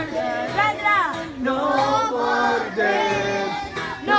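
A woman singing to her own acoustic guitar, with a group of children singing along in chorus.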